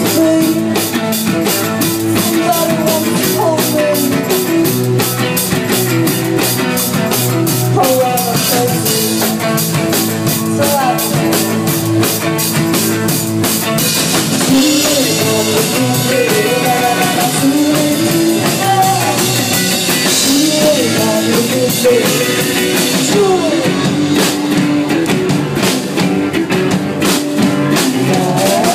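Live rock band playing: a drum kit keeping a steady beat under guitars and bass, with a gliding melody line over the top. The cymbals get louder about halfway through.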